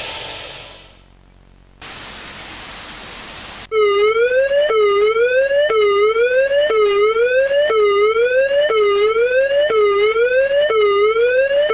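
Music fades out, then about two seconds in comes a burst of static hiss lasting about two seconds. After it, an electronic warning siren starts and keeps going, a fast repeating upward sweep about one and a half times a second.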